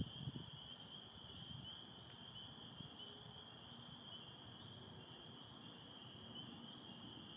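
Faint, dense chorus of spring peepers, their peeps blending into one steady, high band of sound.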